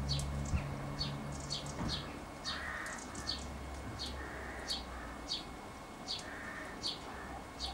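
House sparrows chirping: a steady run of short, high cheeps, about one a second. Three longer, harsher, lower calls sound under them.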